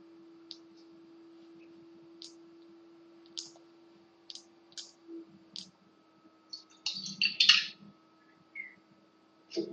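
Scattered short, sharp clicks over a steady low hum, with a louder, denser flurry of clicking about seven seconds in.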